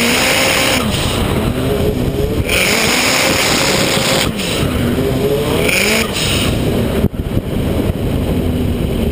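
A Toyota Starlet drift car's engine revving up and down over and over as it drifts, with its tyres squealing in stretches. There is a sharp knock about seven seconds in.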